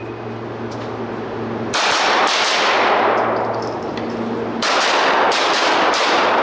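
Pistol-calibre carbine firing five shots: two about half a second apart, then three more at a similar pace about two seconds later. Each shot is followed by a long echo ringing off the walls of the indoor range.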